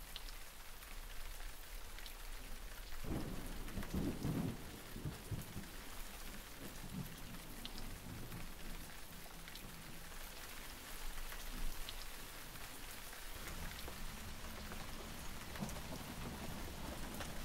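Steady rain hissing, with low thunder rumbling a few seconds in and again near the end.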